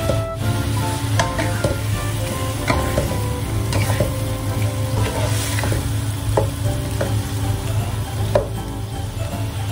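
Fish pieces simmering in black bean sauce in a nonstick wok, with a spatula and ladle scraping and stirring against the pan and a few light knocks of utensil on metal.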